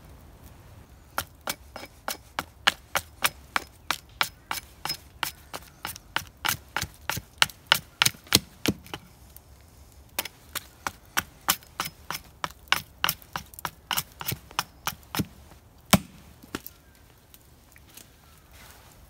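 Small axe chopping at the end of a wooden stick braced on a stump, whittling it bare: a quick run of sharp wooden chops, about three a second, a short pause about nine seconds in, a second run, then one last harder chop near the end.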